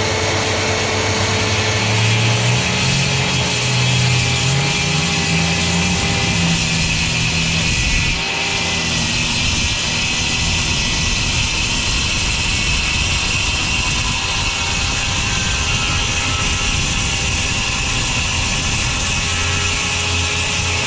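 Corded circular saw running at full speed and cutting through a black plastic sheet: a steady motor whine over the rasp of the blade chewing plastic, with a brief dip about eight seconds in.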